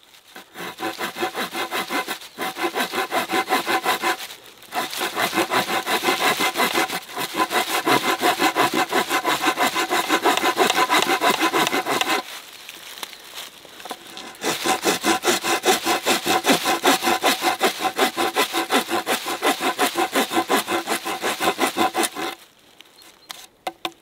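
The COMBAR multitool's handle saw, fitted with a Bosch jigsaw-type blade, cutting a notch into a wooden log with quick back-and-forth strokes. The sawing pauses briefly a few times and for about two seconds near the middle, then stops shortly before the end.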